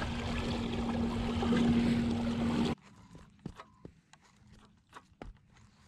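Fishing kayak running under motor: a steady motor hum with water rushing along the hull and wind, cutting off abruptly about three seconds in. After that only quiet water with a few light clicks and taps.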